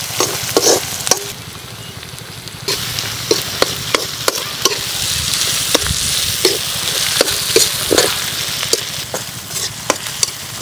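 Chopped onions, green and dried chillies and garlic sizzling in hot oil in a black iron wok. A metal spatula scrapes and clinks irregularly against the pan as they are stirred.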